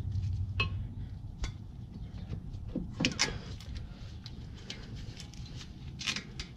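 Metal clinks and knocks of a brake caliper being slid back over new pads onto its mounting bracket, with the caliper bolts handled. There are a few separate sharp clicks over a low steady hum, the loudest cluster about three seconds in.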